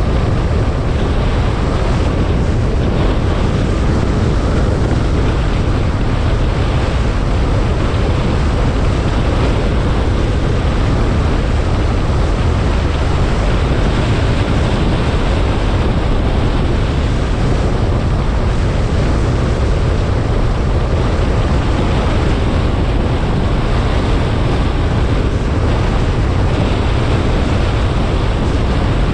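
Steady wind rumble over the microphone of a camera on a moving car, mixed with the car's road noise.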